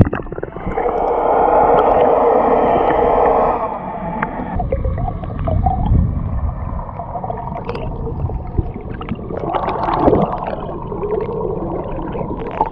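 Muffled underwater sound from a submerged camera: water rushing and gurgling around it, with a louder hiss for the first three seconds or so, then low rumbling and scattered small knocks and clicks, swelling again about ten seconds in.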